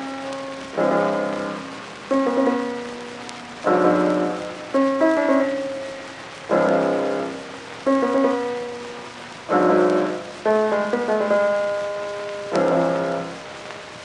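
Piano music: slow chords struck about every second and a half, each left to ring and fade before the next.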